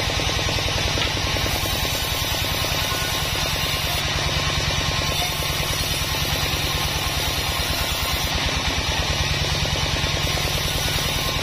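Large sawmill band saw running steadily while a sonokeling (Indian rosewood) board is fed through the blade, with a fast, even low pulsing from the drive throughout.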